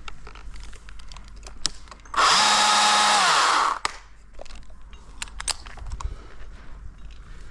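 A chainsaw runs at full speed in a single burst of about a second and a half, then its pitch falls away as it winds down. Scattered light clicks and knocks come before and after.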